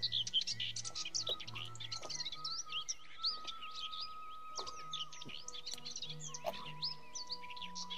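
Many small birds chirping rapidly and continuously, over soft background music with a slow, low bass line.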